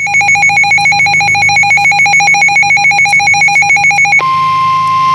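Emergency alert tones announcing a severe thunderstorm warning. For about four seconds there is a rapid pulsing two-pitch beep. It then switches to a steady single tone, typical of the NOAA Weather Radio 1050 Hz warning alarm, which cuts off about a second later. A low hum runs underneath.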